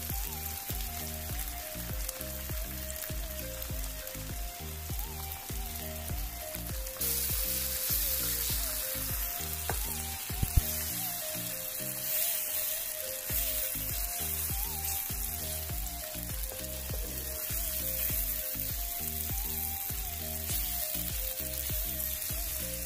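Eggs sizzling as they fry in oil in a pan of onion-tomato masala, with a spatula stirring and breaking them up. The sizzle grows louder about seven seconds in. Background music with a steady beat plays under it.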